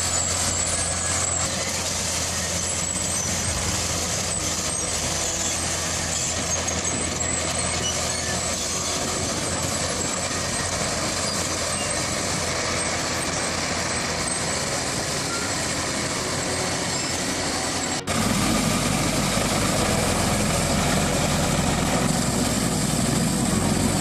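Crawler rotavator running steadily under load, its engine and rotary tiller churning dry soil. About 18 seconds in the sound cuts abruptly to a louder, deeper run.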